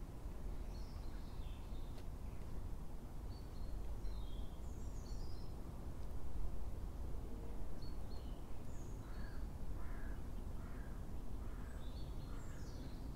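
Crows cawing a few times in a run through the second half, with small birds chirping throughout, over a steady low rumble of wind.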